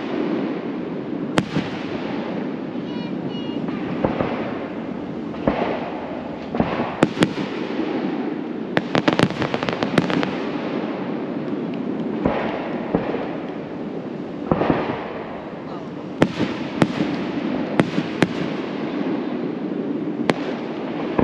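Aerial firework shells bursting in a series of sharp bangs, some in quick clusters, with people talking in the background.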